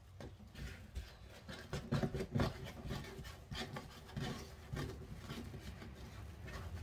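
Rustling and scraping of wreath mesh being handled and worked onto a flat wreath, in irregular strokes.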